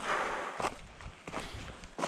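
Footsteps of a hiker walking on a trail, a step about every two-thirds of a second, after a longer hissing scuff at the start.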